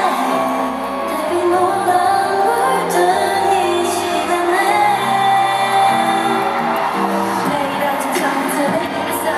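K-pop girl-group song with female singing, heard over an arena's sound system from high up in the balcony.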